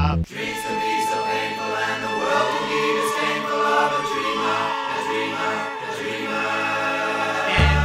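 Background music: a passage of held, sung voices, with the bass dropping out shortly after the start and coming back near the end.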